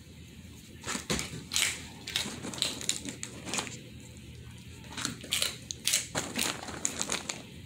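German Shepherd crunching a hard dog treat in its jaws, a run of irregular crunches and cracks.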